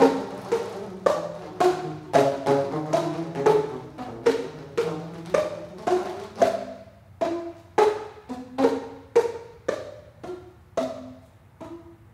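Handmade ceramic tubes in a wooden rack, struck with mallets in a steady, repeating melodic pattern of about two strokes a second, each stroke a short ringing pitched tone. A low held tone runs underneath and fades out about halfway through.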